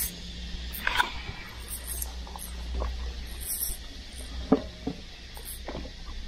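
Clothing brushing and rubbing against the camera and its microphone, with scattered small clicks and scratches and a few short squeaks, over a steady low rumble.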